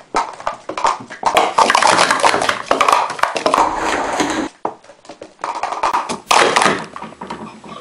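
Plastic Speed Stacks cups clattering as they are stacked up and down at speed on a stacking mat: dense runs of light clicks and taps, with a short lull about four and a half seconds in.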